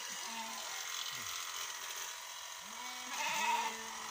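Electric sheep shears buzzing steadily while a sheep bleats several times, the longest and loudest bleat coming about three seconds in.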